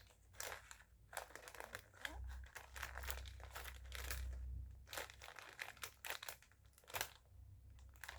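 Plastic instant-noodle packet crinkling and crackling as it is handled and opened by hand, in irregular bursts.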